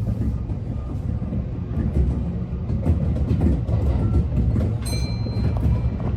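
Kintetsu electric train rolling past at close range: a low rumble with wheels clicking over rail joints. A brief high squeal comes about five seconds in.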